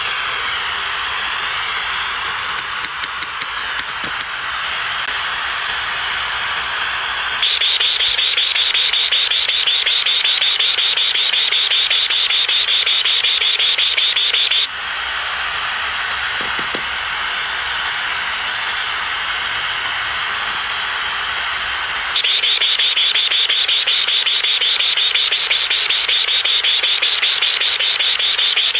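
Static hiss from a small AM/FM radio wired to a satellite LNB as a homemade metal detector, with a few clicks about three seconds in. Twice the hiss jumps to a louder, high, rapidly pulsing buzz that holds for several seconds: the detector's response as pliers are brought near the LNB.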